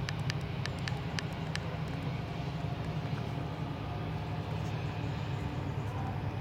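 Steady low drone of a Colas Rail Class 70 diesel locomotive hauling a train, with a run of sharp clicks in the first second and a half.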